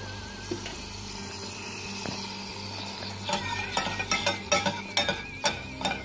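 Melted butter and carob molasses sizzling gently in a cezve on the heat. From about halfway, a rapid, irregular clinking of stirring against the pot.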